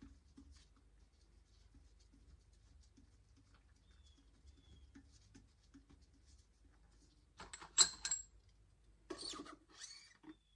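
Faint scattered ticks of small metal parts being handled, then a sharp metallic clink with a brief high ring about three-quarters of the way in, followed a second later by a shorter rattle: engine head studs and tools knocking together during hand installation.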